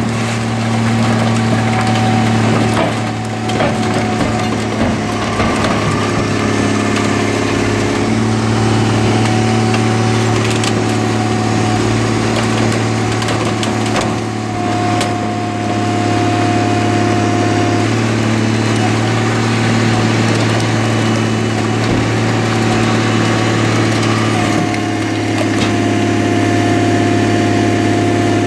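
Car crusher's engine and hydraulics running steadily under load as the crusher lid flattens stacked junk cars, with a higher whine that comes and goes. Scattered sharp cracks and crunches of metal and glass giving way.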